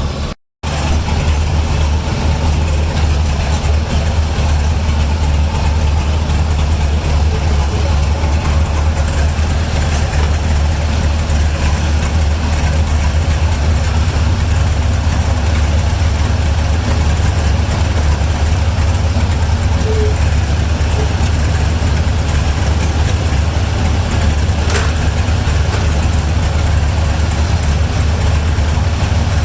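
A large vehicle engine running steadily with a deep low hum, after a brief dropout about half a second in.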